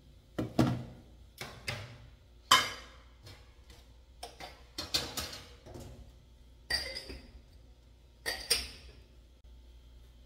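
Kitchenware being handled and set down at a sink: a plastic sieve, plastic containers and small glass jars knocking and clattering in irregular separate knocks, with two sharper clinks of glass late on.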